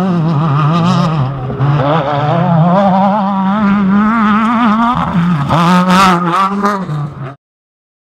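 Off-road race car engine running hard and revving, its pitch wavering up and down with the throttle, then cutting off suddenly near the end.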